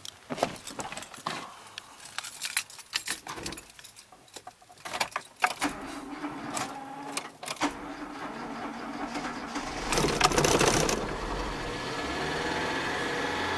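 Clicks and rattles, like keys being handled, then a car engine cranked and started about ten seconds in, settling into a steady idle.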